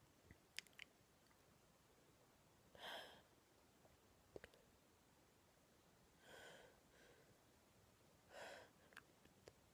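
A woman's quiet breaths, three of them a couple of seconds apart, with a few faint small clicks between them.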